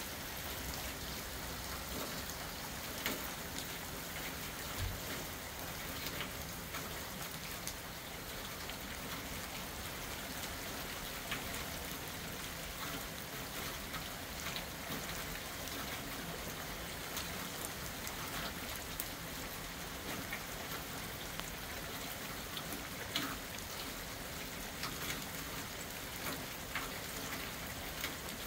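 Steady rain falling on a wet concrete driveway and surrounding yard: an even hiss dotted with the small ticks of individual drops.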